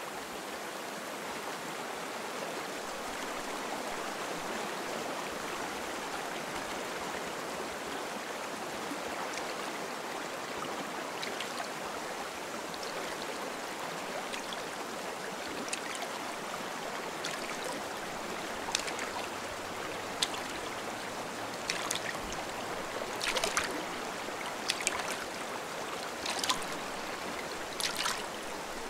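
Steady running stream water, with short splashes of a kayak paddle dipping into the water that start partway through and grow louder and more frequent toward the end.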